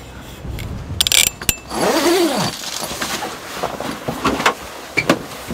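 A plastic cable tie is zipped tight with a short rasp about a second in, followed by a click. About two seconds in, a creak rises and then falls in pitch, and a few light clicks and knocks of handling come near the end.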